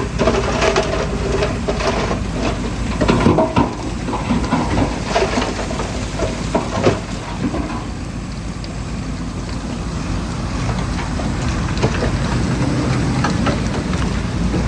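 Heavy diesel construction machinery running steadily, with irregular clattering and scraping of stone and dirt, heaviest in the first half.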